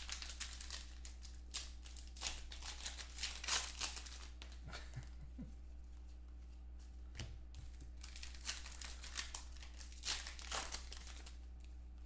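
Foil card-pack wrapper crinkling and trading cards sliding against each other as a stack of Contenders football cards is flipped through by hand, in two bouts of quick rustling with a lull between. A steady low electrical hum runs underneath.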